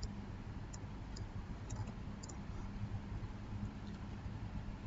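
A few faint computer mouse clicks over a steady low electrical hum.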